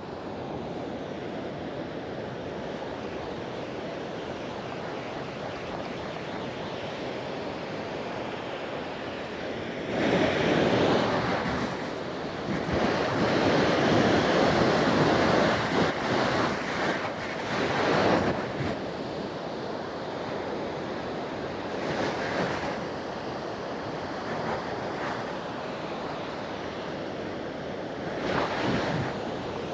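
Surf and strong wind on a beach, the wind buffeting the microphone as a steady rush that swells louder in gusts about ten seconds in and again around eighteen seconds.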